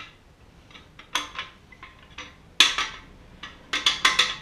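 Steel pieces of a cam bearing removal tool clinking against each other and the engine block as the tool is fitted into the cam bore: a few sharp metallic clinks, then a quick run of them near the end.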